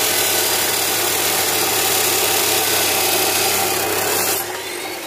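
Abrasive cut-off saw (chop saw) cutting through a MIG-welded joint in thick steel: a loud, steady grinding shriek over the motor hum. About four seconds in the noise drops and the motor's whine slowly falls in pitch.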